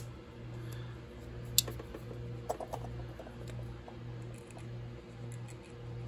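Small clicks and taps of a slipjoint pocket knife being handled, the sharpest about one and a half seconds in and a little cluster of them a second later, over a low hum that throbs a little faster than once a second.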